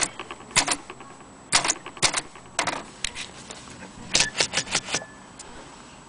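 Vintage Corona Standard manual typewriter being typed on: keys and type bars striking the platen in uneven single clacks, then a quick run of five or six strokes about four seconds in.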